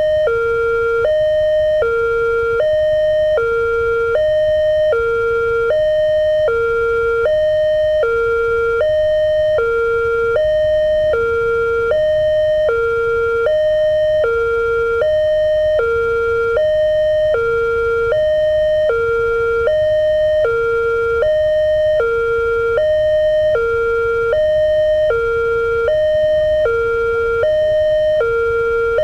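Electronic warning siren of a railway level-crossing gate sounding a steady two-tone alternation, high then low, about one high-low pair a second. It is the crossing alarm that warns road users of an approaching train.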